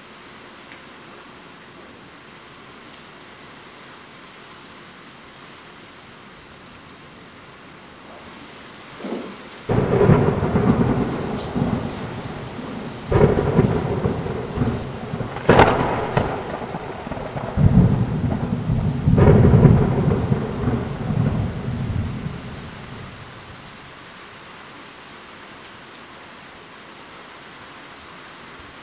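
Steady rain with a long roll of thunder that starts about a third of the way in. The thunder rumbles for about twelve seconds with several loud cracks, the sharpest near the middle, then dies away, leaving only the rain.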